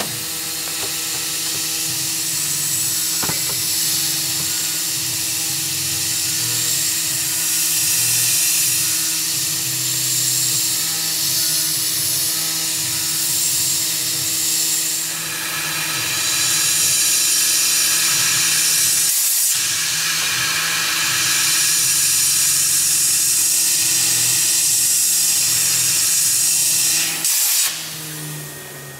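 A Tormach 440 CNC mill's spindle runs a small carbide end mill through aluminum, with a steady high hiss over one steady hum. The cutting noise stops abruptly near the end as the tool lifts clear of the part.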